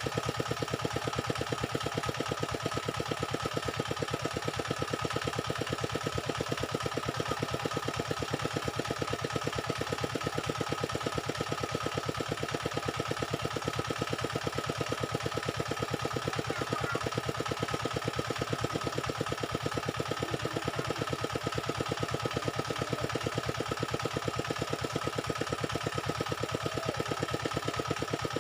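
An engine running steadily at idle, with a rapid, even beat and a steady whine.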